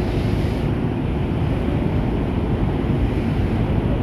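Steady wind buffeting the microphone and water rushing past the hull of an inflatable boat under way at sea.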